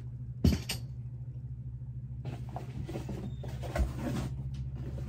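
Someone handling things off-camera while adjusting a light: a sharp knock about half a second in, then rustling with small clicks and another knock, over a steady low hum.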